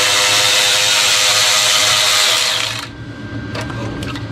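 Cordless power tool running steadily with a motor whine as it backs out a 10 mm bolt on the pump bracket, stopping about two and three-quarter seconds in.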